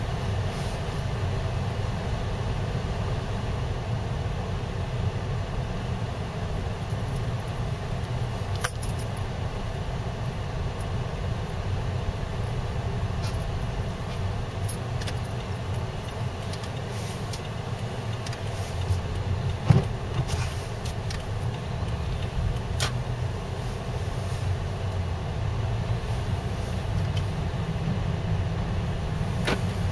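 Car driving slowly on snow-packed and slushy streets, heard from inside the cabin: a steady low rumble of engine and tyres, with a few short knocks and rattles, the loudest about two-thirds of the way through.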